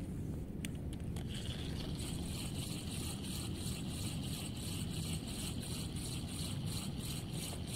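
Small spinning reel (Relix Cetus Attach 1000) being cranked to retrieve a lure after a cast: a regular ticking about four times a second that starts about two seconds in, over a steady low rumble.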